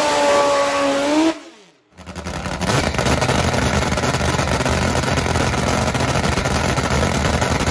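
Top Fuel nitro drag motorcycle engine revving in a burnout, its pitch rising slightly. After a brief cut to silence, it runs loud and steady with a dense, harsh rattle.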